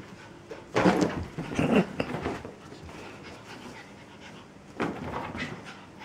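A Shetland sheepdog panting during play, in short noisy bursts about a second in, again around two seconds in, and once more about five seconds in.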